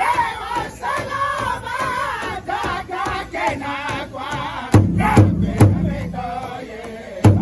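A powwow drum group singing a high, wavering chant together while beating a large hide powwow drum with padded sticks. The drum strokes turn much harder and louder about two-thirds of the way in, a few strokes a second.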